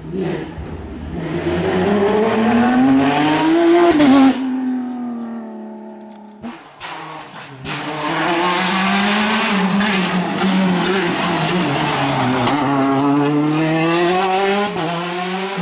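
Rally car engines at full throttle on a tarmac stage. The pitch climbs hard for the first four seconds and cuts off suddenly. From about seven seconds a car accelerates hard again, its pitch rising and dropping at each gear change.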